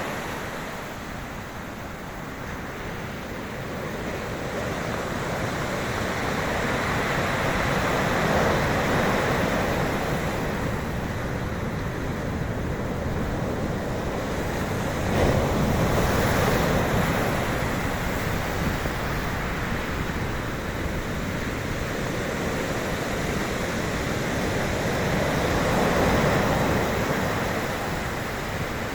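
Sea waves breaking and washing on the shore, a steady rush of surf that swells and eases every few seconds, with a sharper surge about halfway through.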